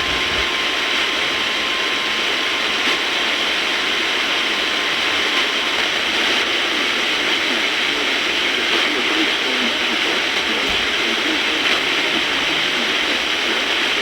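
Radio static: a steady, even hiss from a broadcast receiver tuned to severe-weather alert audio.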